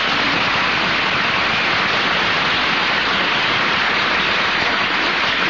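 Studio audience applauding steadily, heard through an old, bandwidth-limited radio broadcast recording.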